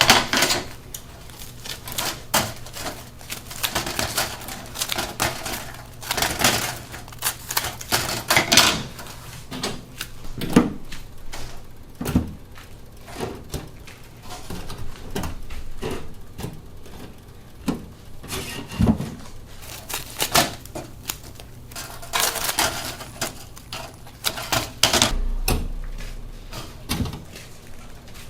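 Rapid, irregular metallic clicking and clattering from working a bungeoppang machine's cast-iron fish molds and metal tools, with occasional louder knocks.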